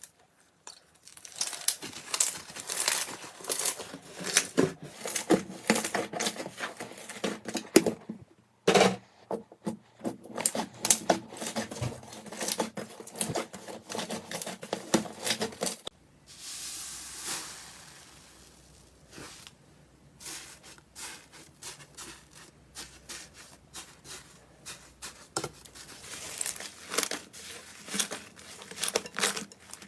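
Crunchy slime being squeezed and pulled by hand, giving dense runs of crackling and popping. About halfway through, the crackle gives way for a few seconds to a softer steady hiss, then picks up again.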